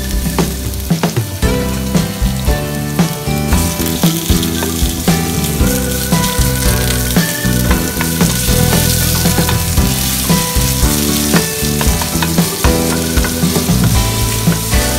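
Sliced onions sizzling in hot oil in a stainless steel pot, stirred with a wooden spoon; the sizzle grows louder a few seconds in. Background music with changing held notes plays throughout.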